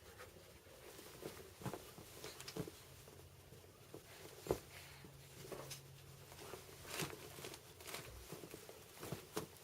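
A light switch being flicked, heard as faint, irregular clicks and taps amid light rustling, the loudest about four and a half seconds in.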